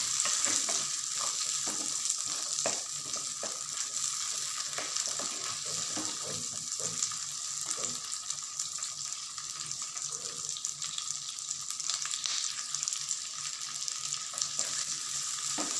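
Shallots and garlic sizzling in hot sesame oil in a pan as they are sautéed, a steady frying hiss. Short clicks and scrapes from stirring come often, more in the first half.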